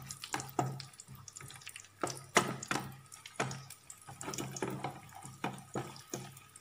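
Cashew nuts and raisins frying in hot oil in a nonstick pan, giving an irregular crackling and popping. A wooden spatula stirs them around the pan.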